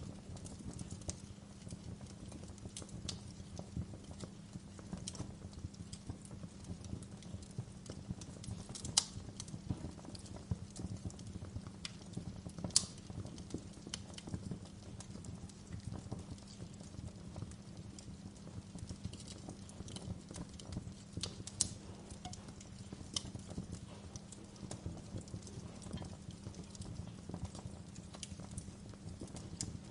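Wood fire burning in a fireplace: a steady low rumble of the flames under irregular sharp crackles and pops, with a few louder snaps scattered through.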